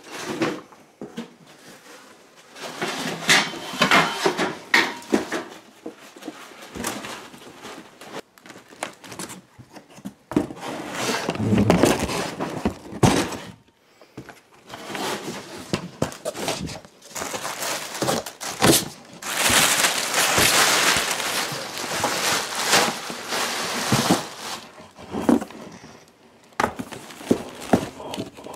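Rummaging by hand through cardboard boxes of old belongings: irregular rustling, scraping and knocks as things are shifted and handled, with a longer stretch of continuous rustling about two-thirds of the way through.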